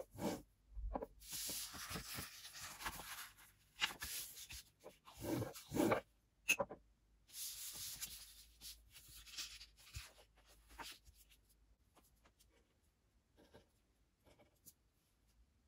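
Sheets of colored paper being handled on a tabletop: rustling, sliding and rubbing in several bursts over the first ten seconds or so, with a few soft knocks. Near the end, faint light taps as a marker pen dots the paper.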